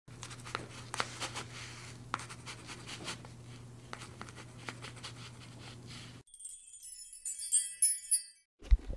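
Felt-tip marker drawing in quick scratchy strokes for about six seconds, over a faint steady hum. The drawing then stops and a bright tinkling chime plays for about two seconds, followed by a short low thump near the end.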